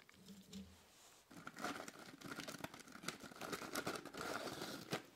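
Fingers rummaging in a tube of Lay's crisps, the crisps rustling and clicking against the clear plastic inner sleeve of the canister, close to the microphone. The rustling starts about a second and a half in and goes on as a dense run of small crackles.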